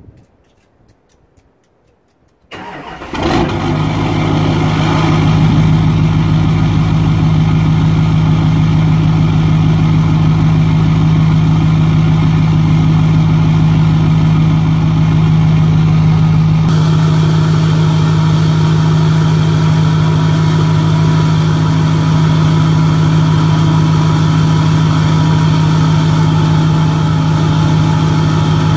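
Diesel pickup engine with a 5-inch Magnaflow straight-pipe exhaust dumping through an 8-inch tip starts about two and a half seconds in. It then settles into a loud, steady idle with a deep hum.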